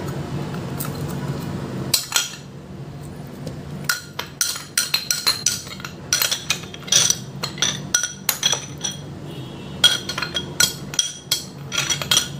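A metal spoon clinking and scraping against a bowl and baking tray while garlic-spice paste is spooned onto the fish: many quick, sharp clinks with a ringing tone, starting about two seconds in. A low steady hum fills the first two seconds.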